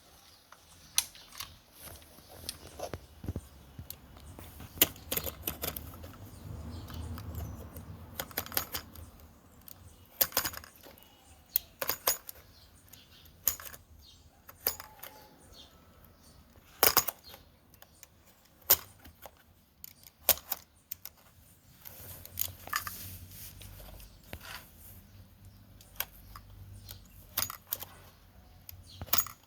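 Irregular sharp clicks, taps and metallic clinks of shoe-repair tools being handled and worked against a shoe while the old sole is taken off.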